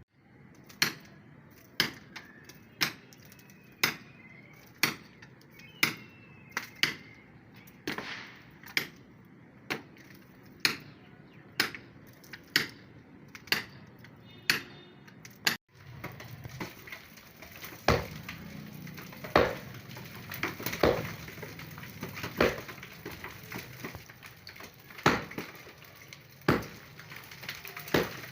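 Sharp clinking strikes of a hand tool on hard material, about one a second. After a break about halfway through they come more irregularly over a louder background hiss.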